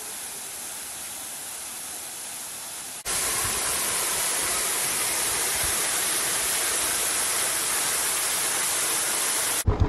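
Small roadside waterfall: a steady rush of falling water that jumps louder about three seconds in, then cuts off abruptly just before the end.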